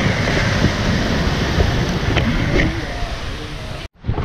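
Shallow seawater sloshing and splashing close to the microphone as someone wades, mixed with wind rumble on the mic. It cuts out for an instant near the end.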